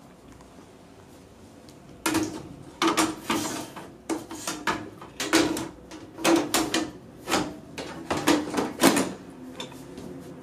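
The sheet-metal top cover of a Dell PowerEdge R720 server is being fitted back onto the chassis. From about two seconds in there is a run of metal clunks and scrapes, about a dozen, as the lid is lowered and slid into place.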